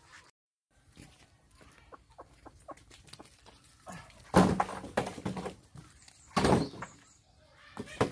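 Chickens clucking while someone works over soil and loose bricks, with small scattered scrapes and clicks. There are two louder scraping strokes, about four and six and a half seconds in, and a shorter one near the end.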